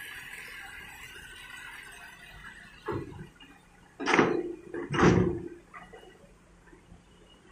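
Hitachi excavator bucket dumping soil into a dump truck's bed: a short knock about three seconds in, then two loud rushes of falling dirt hitting the bed around four and five seconds in.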